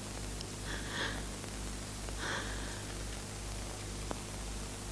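Steady hiss and low hum of an old film soundtrack, with two faint soft scrapes about a second and two seconds in.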